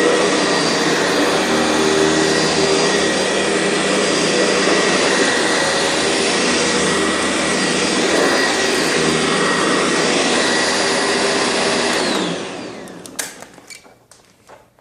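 Sanitaire SC679 upright vacuum cleaner running steadily with a whine, then switched off about twelve seconds in, its motor winding down with a falling pitch. A few small knocks follow near the end.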